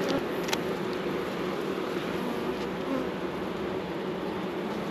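A colony of honey bees buzzing steadily, with a brief click about half a second in.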